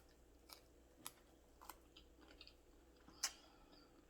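Faint chewing: a few short, soft mouth clicks and smacks spread through near silence, the loudest about three seconds in.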